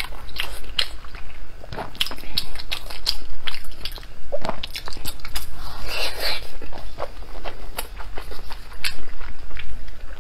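Close-up wet chewing and biting of soft, gelatinous braised pork-skin roll soaked in chili oil: a steady run of sticky, moist mouth clicks and smacks.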